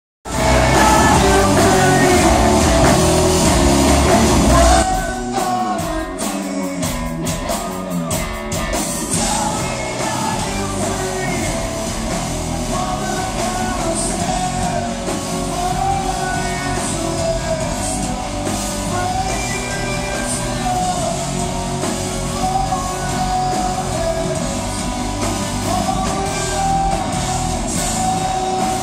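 Rock band playing live through a hall's PA, recorded from the crowd: electric guitar, drum kit and a man singing lead. It is loudest for the first five seconds, then drops back a little while the vocal melody carries on over the band.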